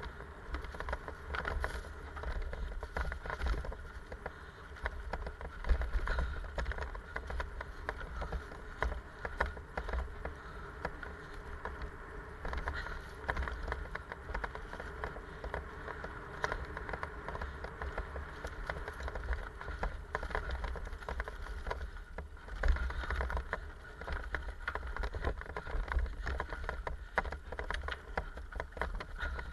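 Mountain bike descending a dirt forest trail: knobby tyres rolling over dirt and leaf litter, the bike rattling and clattering over roots and bumps, over a steady low rumble. A couple of harder knocks stand out, about six seconds in and again around 23 seconds in.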